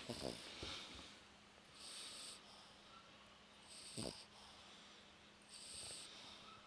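A sleeping pet snoring faintly, a soft hissy breath about every two seconds, with short low snorts near the start and about four seconds in.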